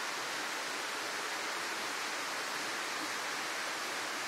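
Waterfall rushing steadily into its pool: an even, unbroken sound of falling water.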